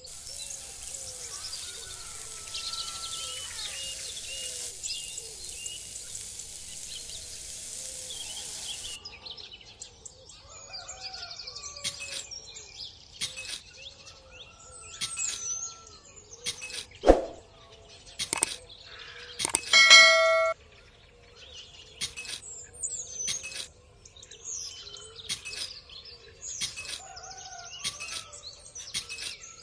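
Birds chirping throughout, over a hiss that cuts off suddenly about nine seconds in, with scattered short clicks and taps. A sharp click about 17 seconds in and a brief ringing ding about 20 seconds in are the loudest sounds.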